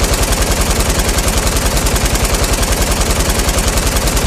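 Rapid automatic gunfire sound effect, like a machine gun firing nonstop at about ten shots a second, loud and unbroken.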